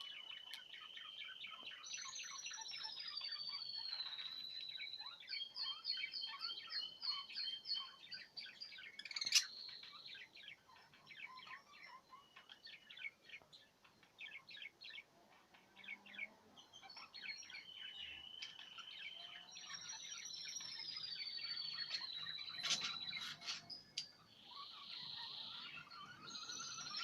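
Budgerigars chirping and warbling, with long falling whistled notes and fast runs of short repeated chirps, and one sharp click about nine seconds in.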